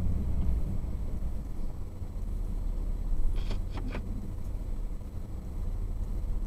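Low, steady rumble of a vehicle driving on a rough dirt road, heard from inside the cab, with three quick clicks or rattles close together about halfway through.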